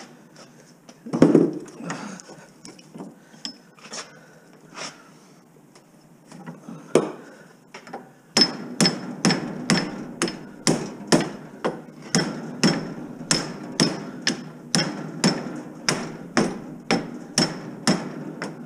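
Hammer blows on a microwave oven transformer clamped in a vise, knocking the steel core apart to get at the copper windings. A few separate strikes come first, then from about eight seconds in a steady run of about two blows a second, each ringing briefly.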